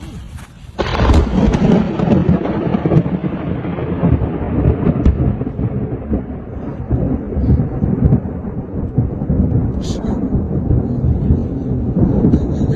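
Thunder from a lightning strike: a sudden loud crack about a second in, followed by a long, deep rumble that continues to rolls on.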